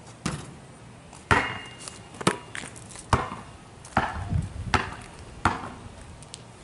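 A basketball being dribbled on a concrete driveway: a series of sharp bounces, about one a second.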